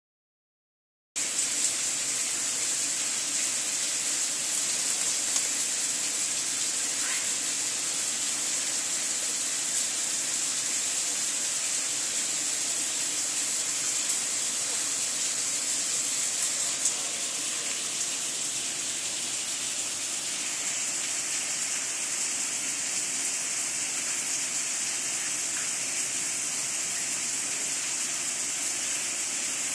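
Steady rushing hiss of running water, starting about a second in and holding even throughout.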